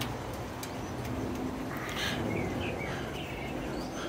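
Small birds chirping a few short calls, mostly around the middle, over a steady low background hum.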